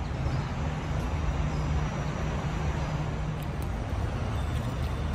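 Steady low rumble of street traffic, with a vehicle engine humming nearby.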